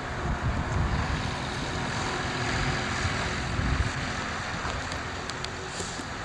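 PKP class Ol49 steam locomotive approaching at low speed: a steady hiss of escaping steam over a low running rumble, with a few light clicks near the end.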